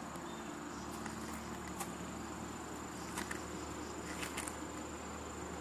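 Freshly lit wood fire of damp split logs in a metal fire ring, flames catching, with a few sharp crackles, two of them close together near the end. A steady high-pitched insect drone runs underneath.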